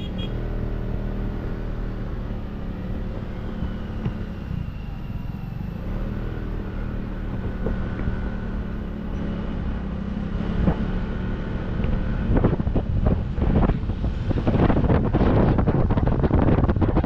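Motorcycle engine running steadily while riding along a road, with wind buffeting the microphone, rougher and louder in the last few seconds.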